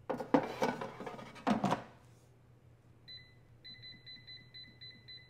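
An air fryer basket slid into a Cosori air fryer, scraping and clunking home twice in the first two seconds. Then the fryer's touch control panel beeps once, and from about halfway through gives a quick run of short high beeps, about four or five a second, as buttons on the panel are pressed to set the cook.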